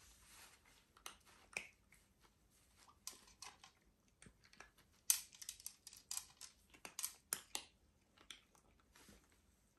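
Scattered short, crisp clicks and crinkles from cats on a tile floor, the kittens scuffling over crumpled tissue paper next to an adult cat at its food bowl; they come thickest and loudest from about five to eight seconds in.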